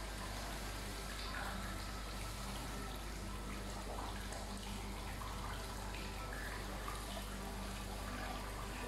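Water running steadily, over a low steady hum.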